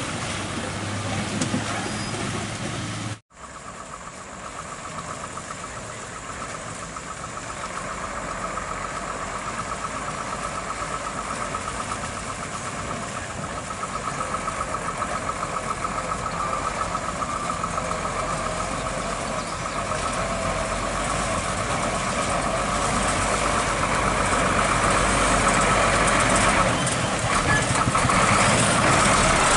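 Iveco Trakker tractor unit's diesel engine running as the truck hauls a loaded lowboy trailer toward the listener, growing steadily louder as it comes close. The sound breaks off abruptly about three seconds in before the approach begins.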